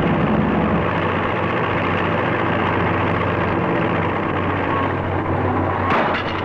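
A heavy engine running steadily, its low tone shifting about a second in, with a short clatter near the end.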